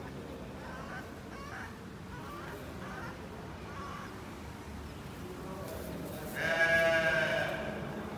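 A sheep bleats once, a single loud quavering call lasting just over a second, near the end, over faint background voices.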